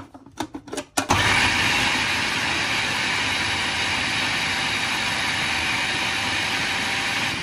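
Electric food chopper switched on after a few clicks, about a second in, then running steadily as its blade minces raw chicken pieces with spices.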